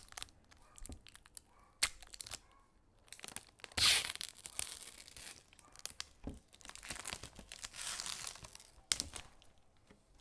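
Packaging being unwrapped close to the microphone: scattered taps and clicks, then a loud burst of tearing and crinkling about four seconds in, and a second, longer crinkling rustle a few seconds later.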